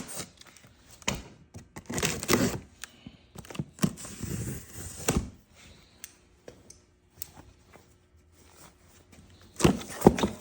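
Cardboard shipping box being opened and handled: irregular thunks and scrapes with stretches of rustling packing material, and a louder cluster of knocks near the end.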